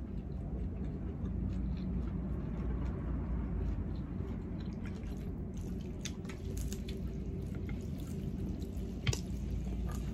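Close-up eating sounds: wet chewing and crackly crunching of fried spring rolls (lumpiang Shanghai), over a steady low hum. One sharp click stands out about nine seconds in.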